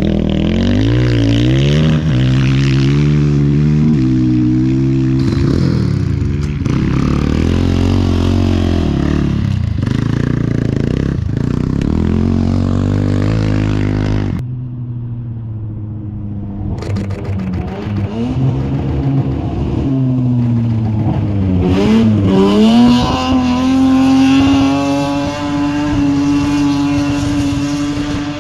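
Dirt bike engines revving, their pitch rising and falling as the bikes ride across loose sand, until the sound drops off suddenly about halfway through. Then another engine builds up and holds a high, steady note at full throttle to the end.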